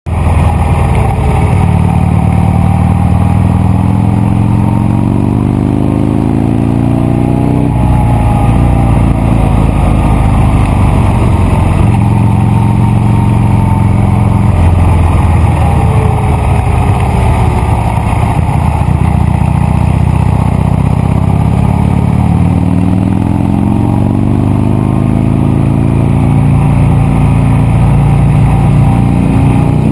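Buell XB9 SX motorcycle's 984 cc V-twin engine accelerating hard through the gears. The pitch climbs, drops sharply at each upshift, then climbs again.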